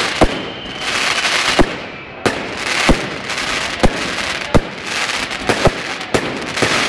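Fireworks going off: sharp bangs every half second to a second, with hissing and crackling between them.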